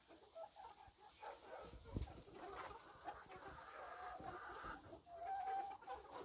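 Chickens clucking, several calls overlapping, with a longer drawn-out call about five seconds in.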